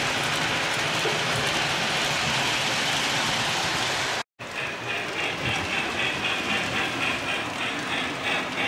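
Lionel O-gauge model train running on its track, giving a steady rolling rumble and hiss. After a sudden cut it is heard closer to the Hogwarts Express steam locomotive, and the sound comes in quick, uneven pulses.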